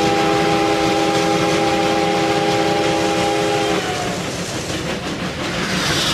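Steam locomotive's chime whistle sounding a steady chord of several notes, which cuts off about four seconds in, over the continuous noise of the locomotive running.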